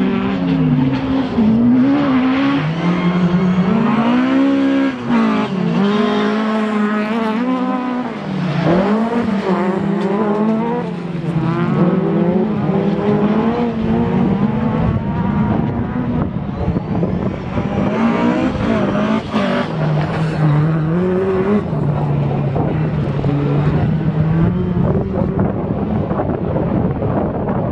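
Race car engines running hard around a circuit, their pitch rising and falling as the cars accelerate, shift and pass by, with more than one engine heard at once.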